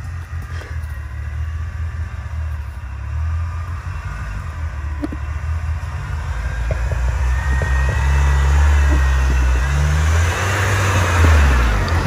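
Off-road vehicle engine running while driving on a rough track, pulling harder and getting louder in the second half, with a rush of noise building near the end.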